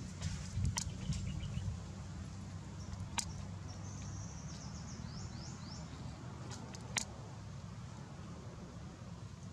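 Outdoor ambience: a steady low hum with a few sharp clicks, and a quick run of high chirps about four seconds in.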